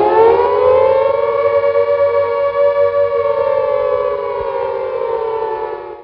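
Air-raid siren sounding one long wail of several tones together: the pitch rises a little, holds steady, then slowly falls and cuts off at the very end.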